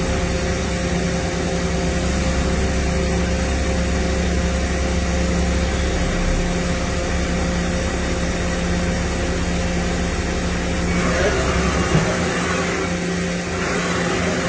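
Mazak VCN 410A CNC vertical machining center running, a steady mechanical hum with several steady tones. The deep part of the hum drops away about twelve seconds in, with a small knock.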